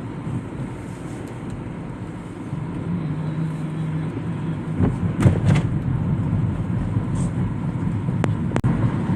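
A vehicle's steady low rumble that grows louder about two and a half seconds in, with a few sharp clicks near the end.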